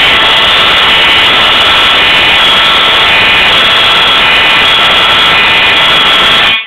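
Fire alarm horn sounding continuously, very loud, then cutting off abruptly near the end.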